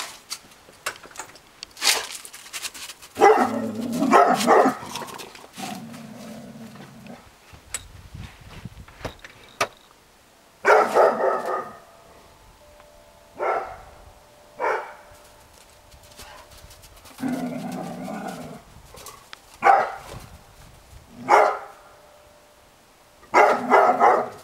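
Doberman pinscher snarl-barking in about nine separate bursts a few seconds apart: protective alarm barking at a suspected intruder at the back door.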